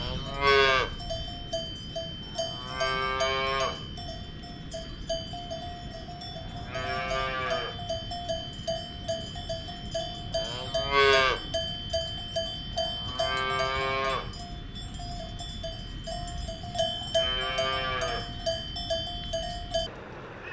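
Cow mooing in six short calls that rise and fall in pitch, a few seconds apart, over cowbells clanging continuously.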